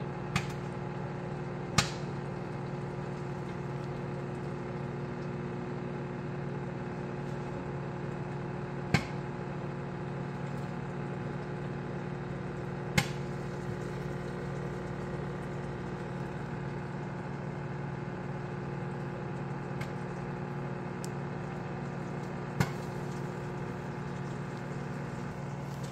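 Danby compact microwave oven running with a steady electrical hum while heating a bag of microwave popcorn. Five sharp, isolated clicks sound over the hum at irregular intervals.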